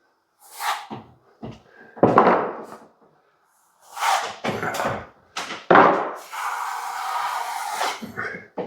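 Plastering trowel sweeping wet plaster across a ceiling repair in a run of short scraping strokes, the last a longer stroke of about two seconds near the end.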